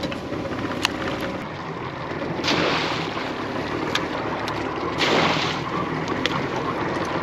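Water splashing and sloshing beside a small aluminium boat as a crab pot goes down. It comes in surges about every two and a half seconds, with wind on the microphone and a few sharp knocks.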